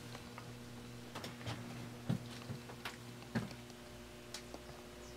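A faint steady hum with scattered knocks and clicks, the two loudest about two seconds in and about three and a half seconds in.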